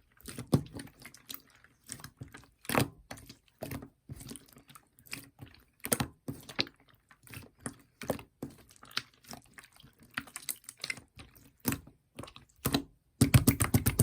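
Clear slime being squished and pressed by hand, making irregular sticky clicks and small air-bubble pops. Near the end comes a fast, dense run of crackling pops.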